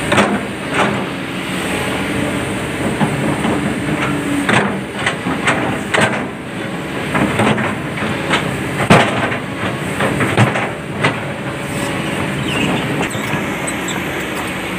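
Kobelco SK200 hydraulic excavator's diesel engine running under load while its steel bucket scrapes and knocks against limestone rocks, giving irregular clanks, with the loudest about nine seconds in. The knocking dies away for the last few seconds, leaving the engine's steady running.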